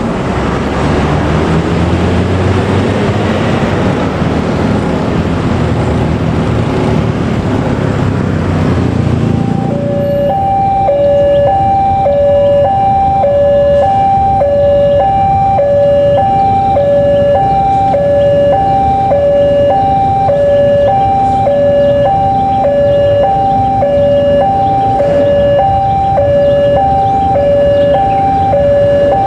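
A train's rumble for about the first ten seconds, then a sudden cut to a railway level-crossing warning alarm: two tones alternating high and low, about one cycle every 0.8 s. The alarm signals an approaching train, here a diesel-hauled passenger train, whose low rumble runs underneath.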